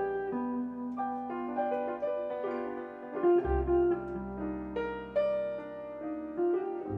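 Jazz trio of piano, semi-hollow electric guitar and bass playing a tune, with single notes and chords over long held bass notes.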